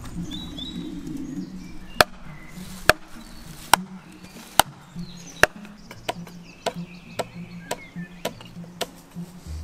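Wooden club hammering the back of an axe head to drive it into a log round like a wedge and split it: five sharp knocks a little under a second apart, then lighter, quicker knocks near the end.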